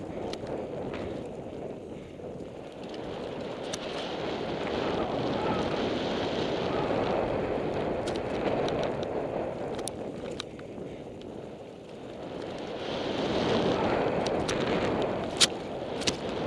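Mountain bike descending a packed-dirt flow trail: the rush of wind over a helmet-mounted camera's microphone and tyres rolling on dirt, swelling and fading with speed. A few sharp clicks and rattles from the bike over bumps, the loudest near the end.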